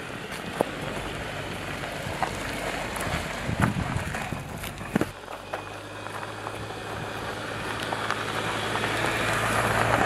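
Jeep Cherokee Trailhawk SUV driving on a dirt and gravel trail: tyres crunching and popping over small stones, with a steady low engine hum from about halfway in. It grows louder toward the end as it passes close by.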